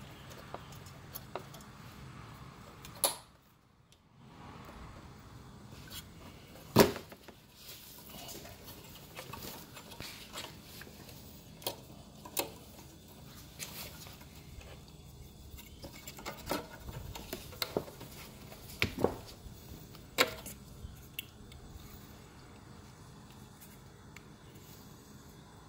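Hands handling plastic clips, a rubber grommet, wiring and a metal bracket on a car's front end: scattered clicks and knocks, the loudest about seven seconds in.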